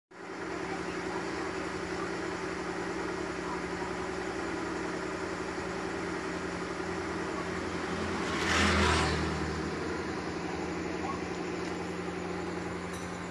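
Steady mechanical hum with a few low steady tones, and a louder rushing swell that rises and fades over about a second roughly eight and a half seconds in.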